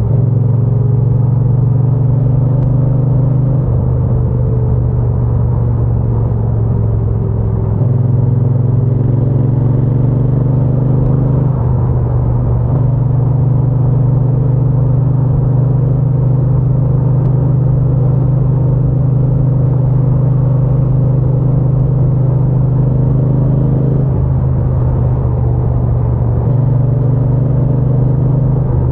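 Triumph Bonneville T120's parallel-twin engine and exhaust running steadily while riding. The engine note shifts up or down a step several times as throttle and gears change.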